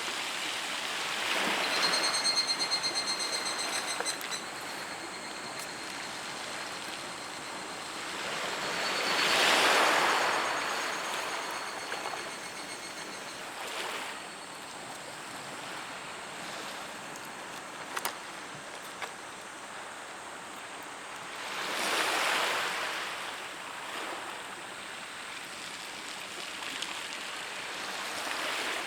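Sea waves washing onto the shore, a steady wash that swells up and dies away three times. A faint high thin whistling tone sounds for a few seconds early on, and a few sharp clicks come in the later part.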